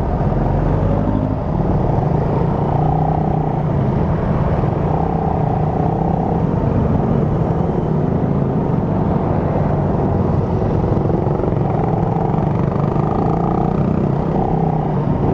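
Motorcycle engine running at an even pace with wind and road noise, picked up by a microphone inside the rider's helmet. The engine hum holds steady throughout.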